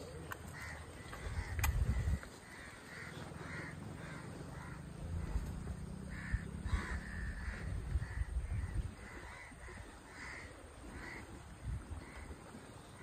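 Crows cawing over and over, short calls spaced about half a second to a second apart. There is a sharp click about one and a half seconds in, and a low rumble on the microphone at times.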